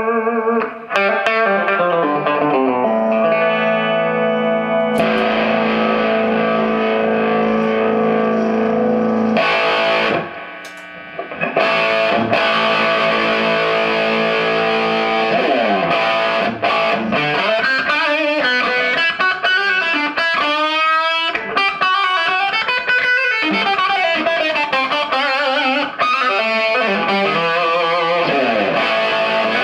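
Electric guitar played through a Marshall 4210 JCM800 50-watt 1x12 valve combo, ringing chords and single notes with a short break about ten seconds in and wavering bent notes around twenty seconds. The amp is working after its V1 and V2 preamp tubes were replaced.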